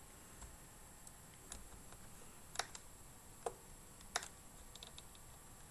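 Scattered clicks from working a computer's keys or buttons: about five single clicks roughly a second apart, the sharpest a little past two and a half, three and a half and four seconds in, then a quick run of faint ticks near the end, over a low steady hiss.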